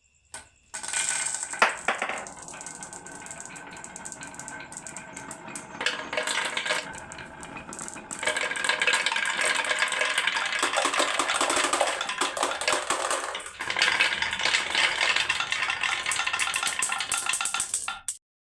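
Marbles rattling and clattering down a marble run track in a dense stream of small clicks and knocks, growing much louder about eight seconds in as more marbles run, then stopping suddenly near the end.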